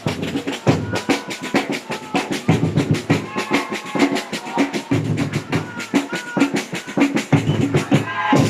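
Samba batucada percussion: a drum ensemble playing a fast, dense, driving rhythm of many strokes a second over a deep bass drum beat.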